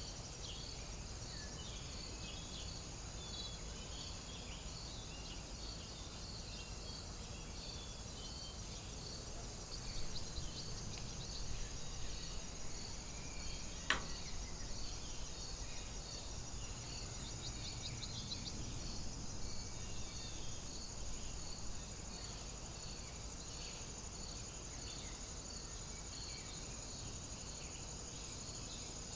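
Outdoor ambience dominated by a steady high-pitched chorus of insects chirping with a regular pulse. Occasional bird chirps, a low wind rumble and one sharp click about halfway through.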